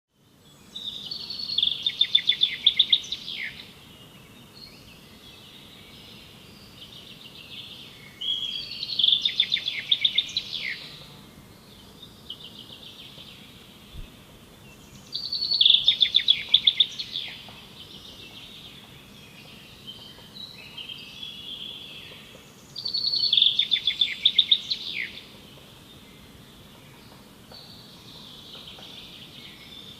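Songbird singing a loud, rapid trilled phrase four times, about every seven seconds, with softer high chirps between the phrases over faint forest background.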